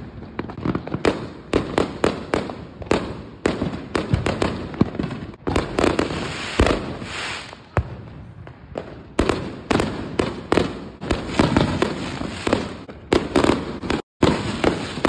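Aerial fireworks bursting overhead: a rapid, continual barrage of bangs and crackling, with a brief cut to silence near the end.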